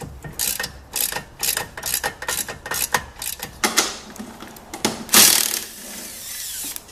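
Socket ratchet clicking through repeated back-and-forth strokes, about two a second, as a tight bolt is undone. About five seconds in comes a louder burst of noise that runs on as a steady hiss for about a second and a half.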